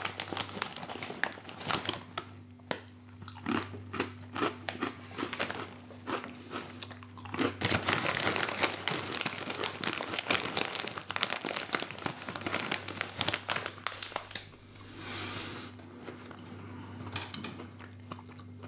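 A hand rummaging in a crinkly plastic bag of sweet chilli pretzel thins, the packet crinkling most densely in the middle, with crunching and chewing of the thin, hard baked pretzels.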